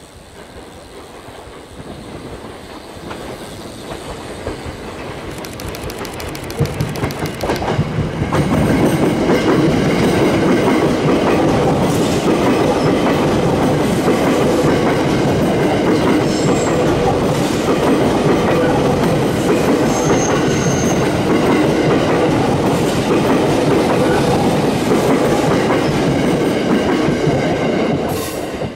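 JR East 209 series electric train passing, its wheels clicking over the rail joints. It builds up over about eight seconds as it approaches, then runs loud and steady for about twenty seconds.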